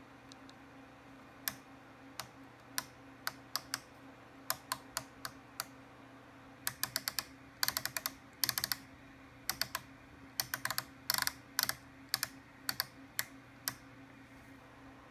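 Detented rotary knob of a Garmin GNC 300XL avionics GPS/comm being turned, stepping the backlight level up. It gives sharp clicks, some single and some in quick runs of several, over a faint steady electrical hum.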